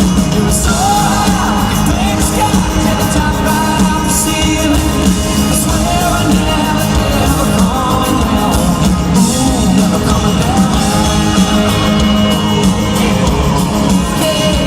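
Live concert music: a band playing with a singing voice over it, and yells and whoops from the crowd.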